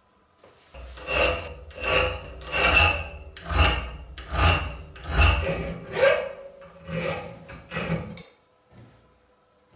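A hand file worked back and forth over a small steel cantilever brake boss clamped in a bench vise. About nine steady rasping strokes come a little under a second apart and stop about eight seconds in.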